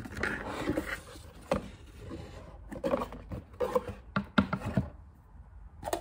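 Cardboard box and packaging rustling and scraping as a milk frother is unpacked by hand, followed by several sharp knocks as the frother is lifted out and handled, and a click near the end as its plastic lid comes off.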